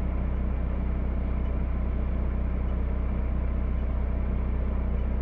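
Jeep driving off-road on snow, heard from a camera mounted by the wheel: a steady, deep rumble of tyres and drivetrain that does not change.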